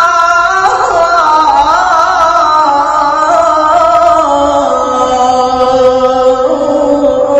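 Male muezzin's voice singing the adhan, the Islamic call to prayer: one long held, ornamented melismatic phrase that wavers and winds slowly downward in pitch.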